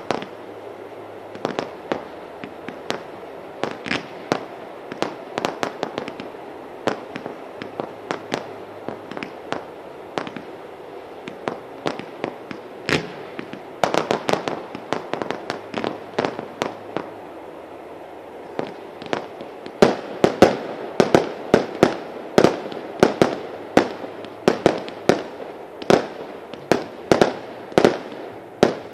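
Consumer fireworks (class 1.4G, up to 50 mm calibre) going off: a run of sharp bangs and cracks over a steady hiss. The shots are irregular at first; from about twenty seconds in comes a faster, louder string of shots at roughly two a second.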